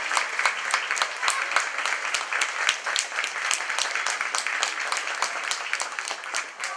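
Audience applauding steadily, with dense clapping that eases off slightly near the end.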